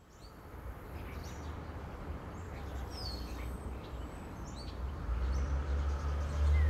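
Outdoor ambience fading in: scattered short bird chirps over a steady low rumble that grows louder toward the end.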